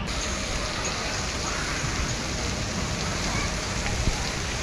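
Water rushing and splashing along the run-out channels at the foot of a water slide: a steady noise of flowing water.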